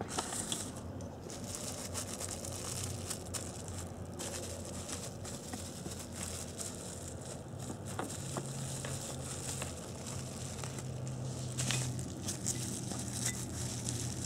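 Bubble wrap crinkling and rustling as hands handle and lift wrapped pieces, with scattered small crackles.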